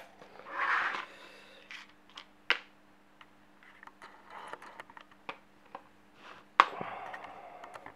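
Handling noise of a brass lock cylinder and small metal tools on a plastic cutting board: a brief rustle near the start, then scattered light clicks and taps, the loudest a sharp click late on. A faint steady low hum runs underneath.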